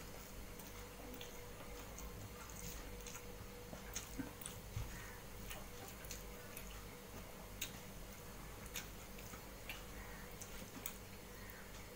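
Eating rice by hand from a metal plate: sparse, irregular quiet clicks from fingers working the rice against the plate and from chewing, over a low steady hum.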